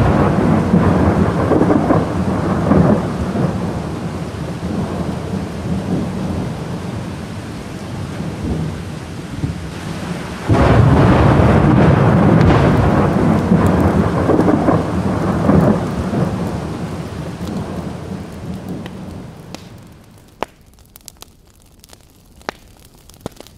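A deep, loud rumbling roar. It eases off, then surges back abruptly about ten seconds in and fades away. A few sharp crackles follow near the end.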